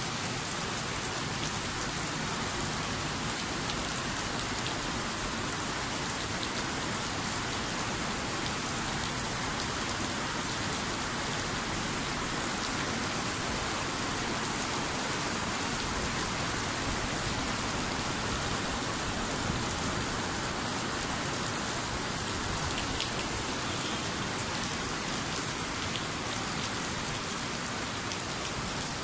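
Steady heavy rain falling on wet concrete paving and walls, an even, unbroken hiss.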